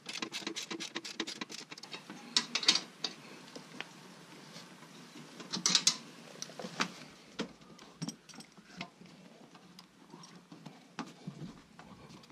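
Hand socket ratchet clicking in a fast even run as a bolt holding a step bracket to a compact tractor's frame is turned, followed by bursts of ratcheting and scattered metal clicks and clinks from the ratchet and a wrench.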